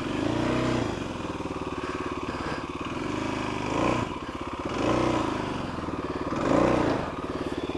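Kawasaki KLX250's single-cylinder engine revving up and falling back in about four throttle blips over a steady running note, as the dirt bike struggles to get over a trail obstacle.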